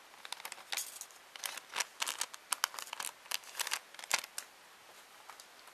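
Small plastic bag crinkling and crackling as it is handled, a dense run of sharp clicks that thins out about four seconds in.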